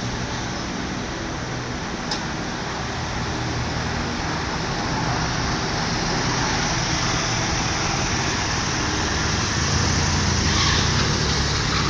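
A new Mitsubishi Mirage being driven: steady road and tyre noise over a low engine hum, growing a little louder over the second half.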